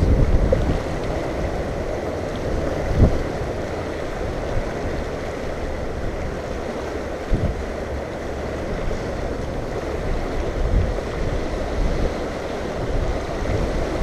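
Wind gusting across the microphone in low thumps, about 3 and 7 seconds in, over the steady rush of a flowing river.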